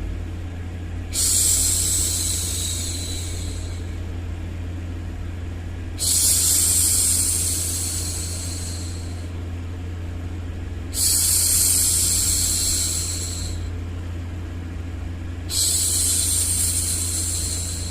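A woman's long shushing 'shhh', the kind used to hush a baby, comes four times, about every five seconds. Each one starts loud and fades out over two to three seconds, over a steady low rumbling noise bed.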